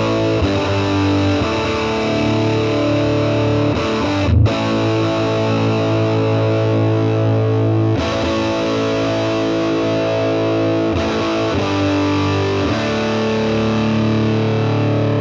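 Electric guitar on its bridge humbucker with the volume full up, through the Fractal FM9's Nuclear Tone amp model and a 1x12 Nuclear Tone DynaCab with a ribbon mic, the amp's controls all turned up. It plays heavily distorted, ringing chords, each held for a few seconds, changing about four times with a short break about four seconds in.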